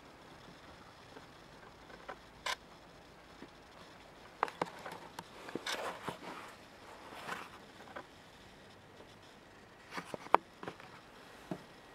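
Handling noise: scattered soft rustles and a few short, sharp clicks, the loudest click about ten seconds in. The slicer's motor is not running.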